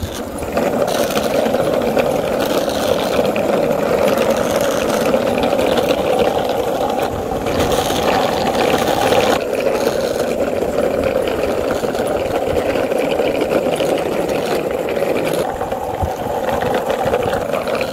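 Longboard wheels rolling fast over rough, cracked asphalt: a loud, steady rolling drone with a hissy top.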